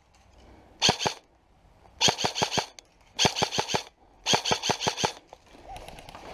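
Airsoft rifle firing in rapid bursts at about ten shots a second: a quick pair about a second in, then three bursts of six or seven shots each, stopping about five seconds in.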